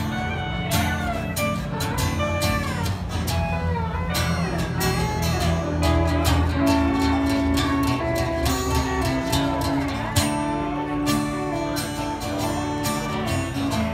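Instrumental break of a country song: pedal steel guitar playing gliding, sliding lead notes over a strummed acoustic guitar.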